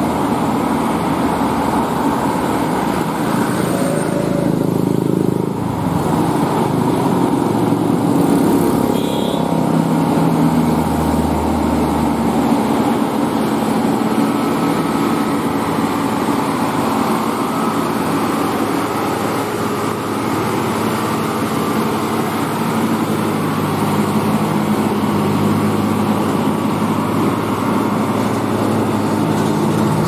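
Diesel engine of a Hino tractor unit hauling a loaded container, running steadily under load as the truck climbs a steep hill and comes past close by, with other road traffic.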